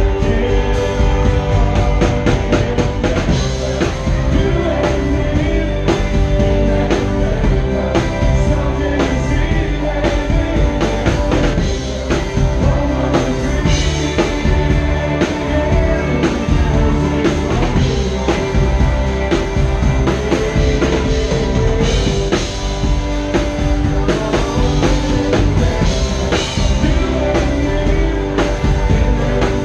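Live band playing loudly and without a break, with a driving drum kit, electric guitar and keyboard.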